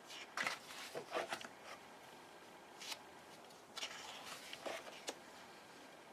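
Pages of a hardcover photo book turned by hand: paper rustling and flicking in two clusters, the first about half a second in and the second around four seconds in, with a single soft tick between them.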